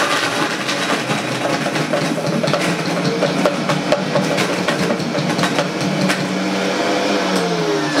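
Vitamix high-powered blender running at speed, chopping a load of onion, dates, sun-dried tomatoes and fresh herbs into a coarse pre-mix, with many small clatters of pieces striking the jar. Its motor pitch drops near the end as it winds down.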